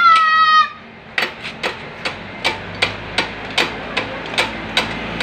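Sharp metallic tool strikes on the CRF150 engine, tapping steadily at about two to three a second. At the very start there is a brief high-pitched call, the loudest sound, falling slightly in pitch.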